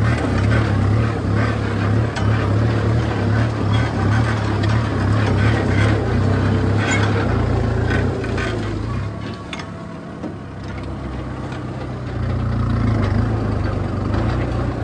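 Kubota M6240 tractor's four-cylinder diesel engine running under load, pulling a disc plough through hard, dry, stony ground, with scattered knocks from the plough. The engine note drops for a few seconds past the middle, then picks up again.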